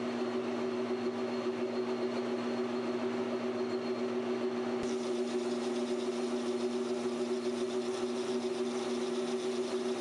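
PM1236T metal lathe running steadily with a droning whine while a 1/8-inch HSS parting blade cuts a groove into a 6061 aluminium bar. The sound turns brighter and hissier about halfway through.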